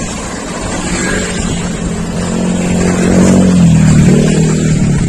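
A motor vehicle passing close by: its engine hum grows louder, peaks about three to four seconds in and drops in pitch as it goes past.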